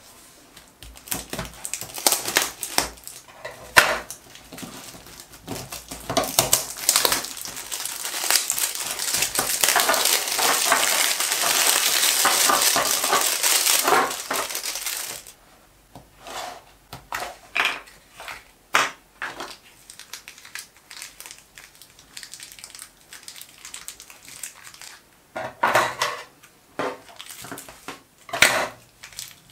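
Thin plastic bag crinkling and crackling as it is handled and emptied, followed by a series of separate clicks and taps as small plastic collet cases knock on a wooden bench and are snapped open.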